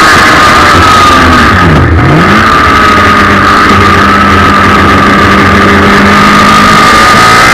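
Suzuki Hayabusa inline-four motorcycle engine in a race car, heard onboard at high revs on track. Its note dips briefly about a second or two in, then climbs back and holds steady.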